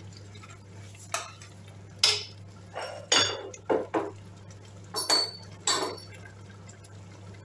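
A metal spoon clinking and knocking against a stainless-steel stock pot and a bowl: a string of sharp, ringing clinks spread over several seconds, over a steady low hum.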